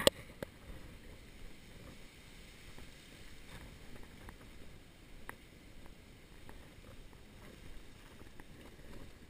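Footsteps in soft sand with a steady low rustle of wind and motion noise on the microphone. There is one sharp knock right at the start and a few faint ticks after it.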